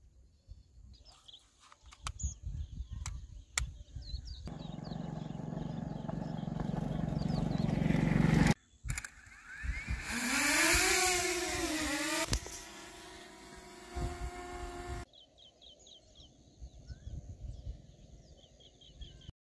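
A DJI Mini 2 drone's propellers whining, their pitch rising and falling for about two seconds in the middle. Before that a hum rises for about four seconds and cuts off suddenly, and faint bird chirps come at the start and near the end.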